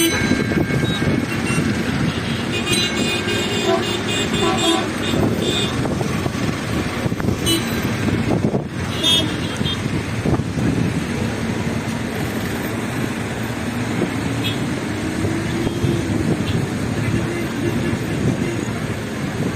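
Busy city road traffic: cars passing steadily, with short car-horn toots a few seconds in and again about nine seconds in.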